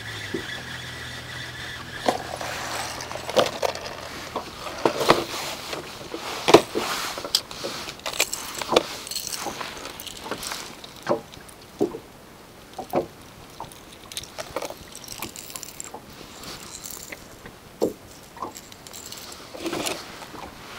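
Irregular clicks, knocks and rattles of fishing gear being handled aboard a small boat, over a steady background hiss.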